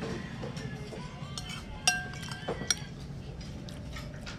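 Metal spoon clinking against a bowl while scooping: a few sharp clinks with a short ring, the loudest about two seconds in.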